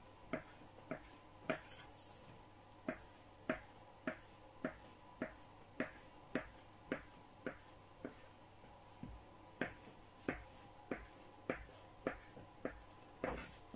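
Knife cutting a rope of dumpling dough into pieces on a plastic cutting board: faint, even clicks of the blade striking the board, about two a second, with a short pause about two seconds in.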